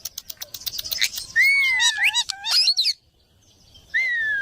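Parrot chirping and clicking in quick succession, then whistling long gliding notes that dip and rise. It falls silent for about a second, then whistles again with a sharp upward swoop at the end.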